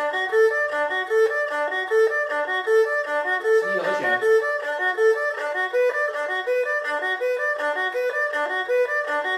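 Erhu playing a broken-chord arpeggio exercise, a quick, even run of short notes stepping up and down through C major, A minor and F major chords.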